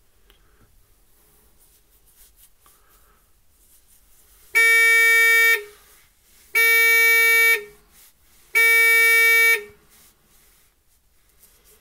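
Electronic buzzer sounding three long beeps, each about a second long and about two seconds apart, from the solar water heater controller.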